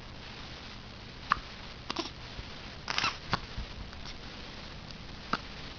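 Baby hiccuping: a handful of short, sharp hiccups at uneven intervals, the middle ones close together.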